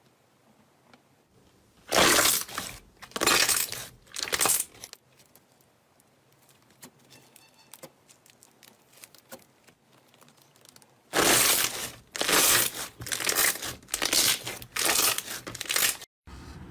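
Slime being pressed and worked by hand in short squishing strokes. There are three strokes about two seconds in, then a quiet stretch with faint crackles, then a close run of strokes from about eleven seconds in.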